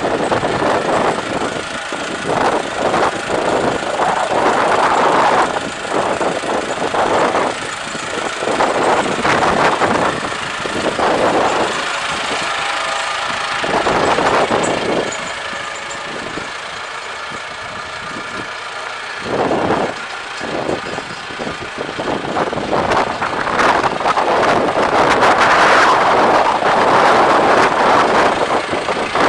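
Case IH 1685 tractor's four-cylinder diesel engine running as the tractor drives over gravel, its loudness swelling and fading several times, dipping about two-thirds of the way through and loudest near the end.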